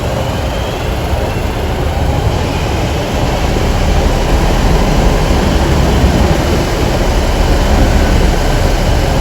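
A train moving through the station: a continuous heavy rumble with a faint rising whine, growing louder about three seconds in.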